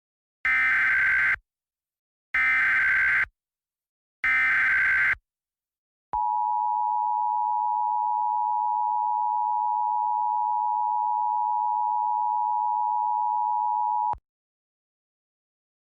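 Emergency Alert System signal: three short bursts of buzzing digital header data, about a second each and evenly spaced, followed by the steady two-tone EAS attention signal held for about eight seconds and then cut off sharply. This is the sequence that opens a new emergency alert broadcast.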